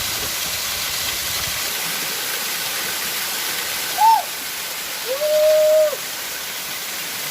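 Waterfall rushing steadily over rocks. Two short hoot-like calls stand out over it, a brief one about four seconds in and a longer, level one a second later.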